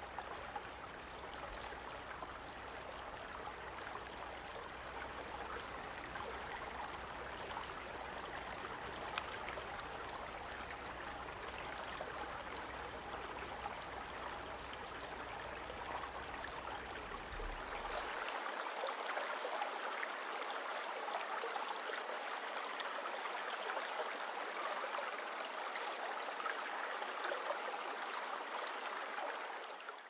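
Shallow forest stream running steadily over stones. About 18 seconds in, the low rumble drops away and the water gets slightly louder and brighter.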